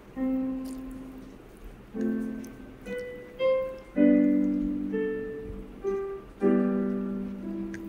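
Background piano music: unhurried chords and single notes, each struck and left to ring and die away, a new one about every second.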